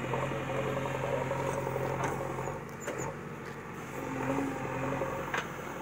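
JCB 3DX backhoe loader's diesel engine running steadily while the backhoe digs, louder for the first half and easing off partway through, with a few faint clicks.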